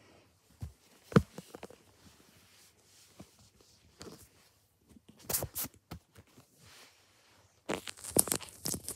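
Fleece blanket rustling and scraping in short bursts as it is handled close to the microphone, with a sharp knock about a second in and the loudest bursts around five and eight seconds in.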